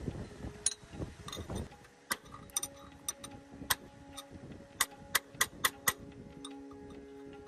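Metal parts and tools clinking and tapping in irregular sharp clicks, with duller handling knocks in the first two seconds and a faint steady hum underneath from about two seconds in.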